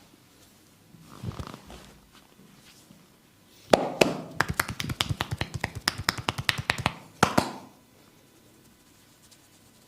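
Rapid sharp clicks from a masseur's hands working on the client's body: a run of about eight a second lasting some three seconds, then one more loud crack. A softer rub comes about a second in.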